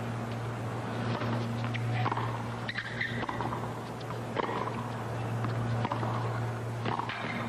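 Tennis rally on a hard court: the serve and several sharp racket-on-ball hits, with short squeaks of players' shoes on the court, over a steady low hum.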